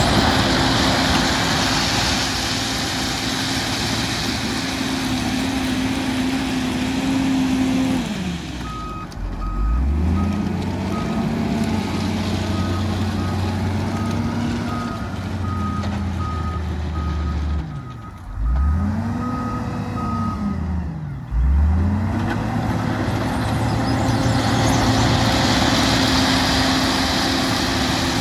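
Heavy diesel engine running, its revs dropping and picking back up a few times. A reversing alarm beeps steadily for about ten seconds in the middle.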